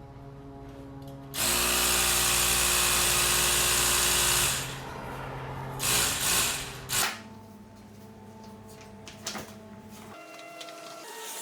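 A small handheld power tool's motor runs for about three seconds, then gives three short bursts.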